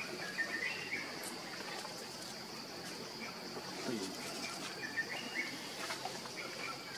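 Steady high-pitched insect drone, with short chirps scattered over it.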